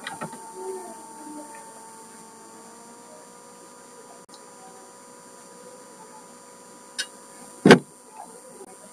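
Steady electrical hum on an open microphone, with a click at the start, a sharp click about seven seconds in and a louder knock just after it.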